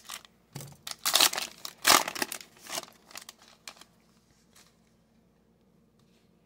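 Foil wrapper of a trading-card pack crinkling and tearing as the pack is opened and the cards are slid out. The crackling comes in a run of sharp bursts, loudest in the first two seconds, and stops about four seconds in.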